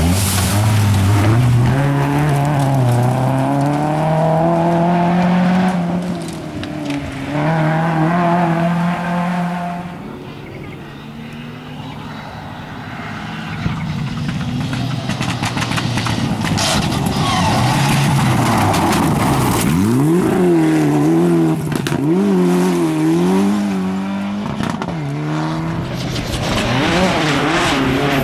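Rally cars on a gravel stage passing at full attack, engines revving hard and dropping back through quick gear changes. The engine sound fades briefly about ten seconds in, then the next car arrives with rapid rev swings.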